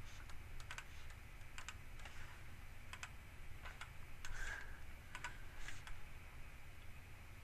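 Scattered light clicks of a computer mouse and keyboard, irregularly spaced, a few each second at most, over a faint low hum.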